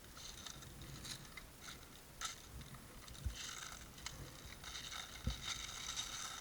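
Faint rustling and irregular clicking from an airsoft player's gear as he moves, with a couple of dull thumps about three and five seconds in.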